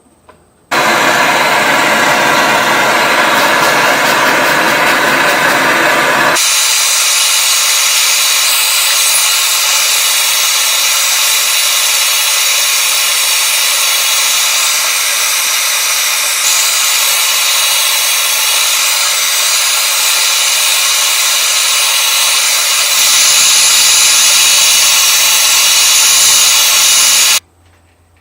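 A small electric power tool running steadily on the spoon. It starts suddenly about a second in and cuts off suddenly near the end. Its sound thins, losing its low part, at about six seconds and deepens again a few seconds before the end.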